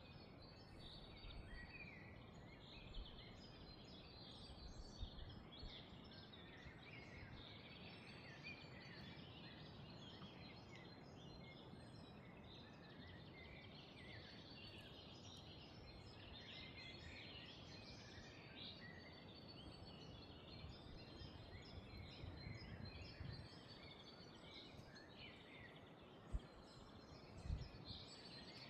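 Faint chorus of many small birds chirping and singing at once, over a soft low rumble. Two short low thumps come near the end.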